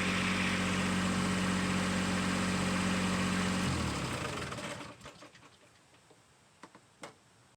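Kubota B2601 tractor's three-cylinder diesel engine running steadily, then shut off about four seconds in and winding down to a stop. A couple of faint clicks follow near the end.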